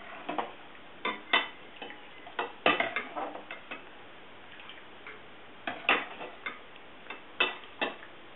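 Metal ladle clinking in scattered sharp taps against a stainless steel pot and a porcelain bowl while soup is ladled out.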